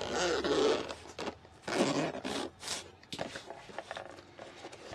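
Zipper of a GoPro carrying case being pulled open in two long strokes, the second about a second and a half after the first. Lighter scraping and rustling of the case being handled follows.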